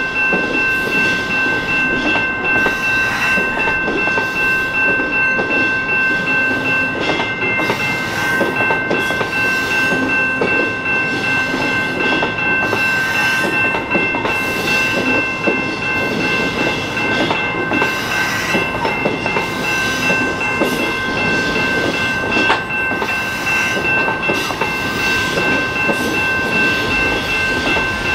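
Commuter train running: a steady whine of several held high tones over a rough rumbling noise, with frequent short clacks and knocks.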